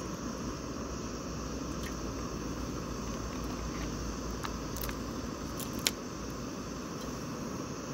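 Gas canister camping stove burning with a steady hiss under an aluminium mess tin as water is poured in. There are a few sharp clicks, the loudest about six seconds in.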